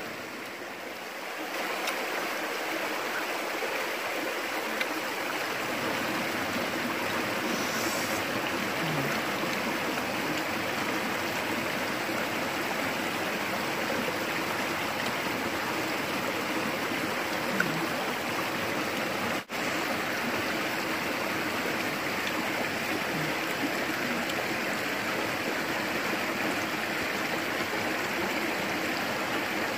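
A stream running steadily over rocks: an even rush of water. It cuts out for an instant about twenty seconds in.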